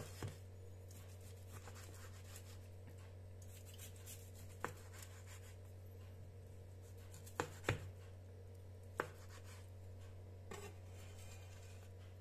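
Chef's knife slicing through a blackened chicken breast and knocking on a plastic cutting board: a few short, sharp taps spread through, faint over a low steady hum.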